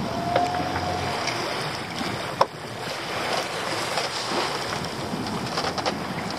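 Wind on the microphone and sea washing around a small open fishing boat as a lobster pot goes over the side. There is a short squeak near the start and a single sharp knock about two and a half seconds in.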